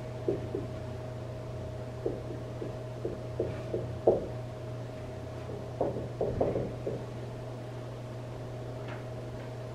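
Dry-erase marker tapping and scraping on a whiteboard as words are written, in short clusters of strokes, loudest a sharp tap about four seconds in. The strokes stop after about seven seconds, leaving a steady room hum.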